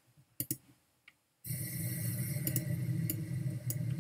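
A few mouse clicks, then a recorded wind sound effect starts about a second and a half in: a steady rushing wind with a strong low rumble, with a couple of clicks over it.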